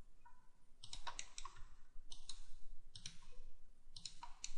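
Computer mouse clicking in short quick clusters, roughly one cluster every second.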